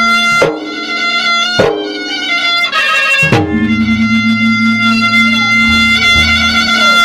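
Traditional Makassar gendang adat music, led by a melody instrument holding long sustained notes that slide in pitch into each new note, about half a second, one and a half and three seconds in.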